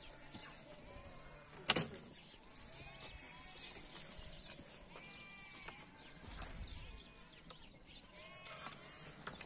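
Sheep bleating, many short calls overlapping and repeating, with one sharp knock about two seconds in.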